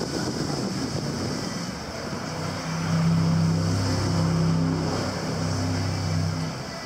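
Jet boat rushing through spray, with its engine coming in as a steady drone about two seconds in and dropping away near the end.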